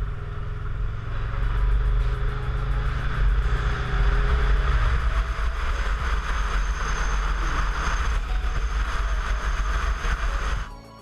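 Kawasaki Versys 650's parallel-twin engine running while riding, with wind rumbling on the GoPro microphone. The engine note changes about five seconds in, and the sound cuts off abruptly near the end.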